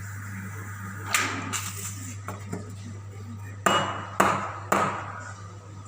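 Metal coffee-making gear knocked against a hard surface: a softer knock about a second in, then three sharp knocks about half a second apart, one leaving a brief metallic ring, over a steady low hum.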